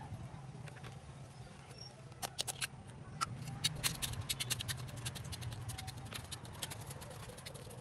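A metal tool jabbing and stirring into gritty soil in a plastic pot: irregular sharp scratches and clicks, several a second, starting about two seconds in. A steady low hum runs underneath.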